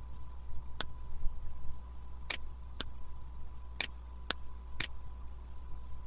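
Computer mouse button clicking: six short sharp clicks, several about half a second apart, over a low steady hum.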